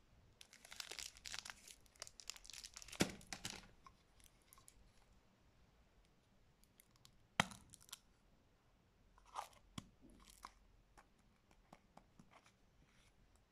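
Clear cellophane candy wrapper crinkling and tearing for the first few seconds as a lollipop is unwrapped. Then scattered light plastic clicks follow, including one sharp snap about halfway through, as a small plastic candy bottle is handled.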